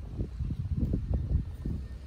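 Wind buffeting the microphone: a low, uneven rumble with several short gusts.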